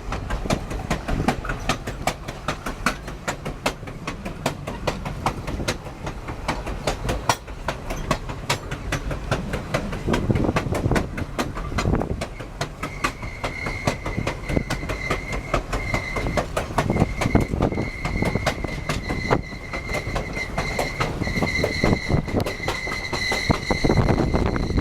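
Passenger train wheels running over the rail joints, a steady clickety-clack of sharp clicks, heard from the open back platform of the last car. About halfway through a high, steady wheel squeal joins in and holds.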